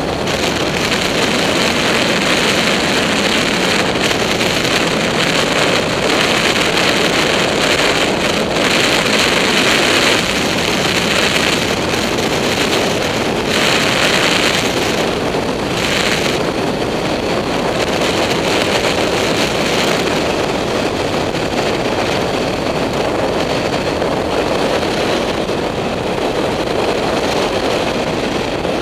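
Wind rushing over a helmet camera's microphone while a BMW F800GS motorcycle is ridden at road speed, with the bike's running and road noise underneath. Steady throughout, with the wind surging a little in the middle.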